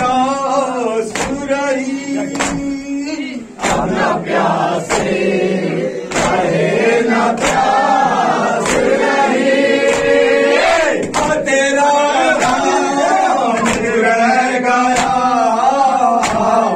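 Men chanting a noha, a Shia Muharram lament, in unison with a lead reciter on a microphone. Sharp slaps of hands on chests (matam) keep the beat, about one every 0.7 seconds.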